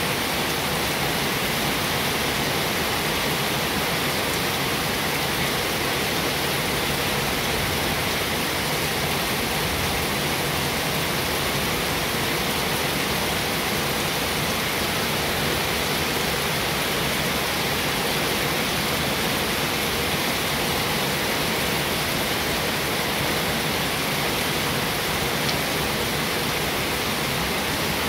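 A steady, even rushing hiss that does not change, with no separate sounds in it.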